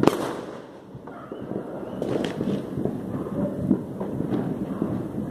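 New Year's fireworks going off around the neighbourhood: one sharp, loud bang right at the start that dies away within about half a second, then a continuous rumble of more distant bangs with a few sharper pops.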